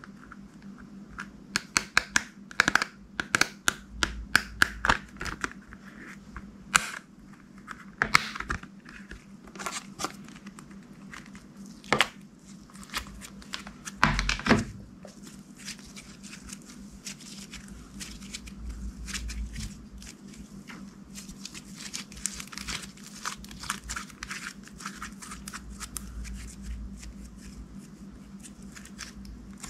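Hands kneading and pressing slime, making irregular sticky clicks and pops: dense and sharp through the first half, settling into a softer continuous crackle in the second half.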